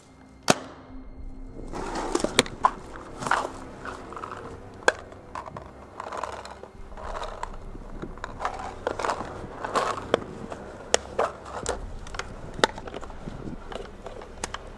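Crunching of dry leaves, twigs and rubble under a moving player, with scattered sharp snaps and knocks throughout.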